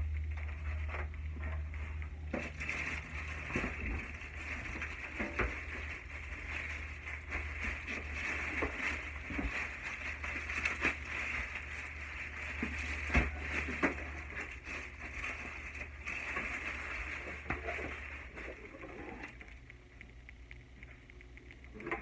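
Packing materials being handled during unboxing: plastic and foam rustling with scattered knocks and taps, the sharpest about 13 seconds in. A steady low hum and hiss underneath stop near the end.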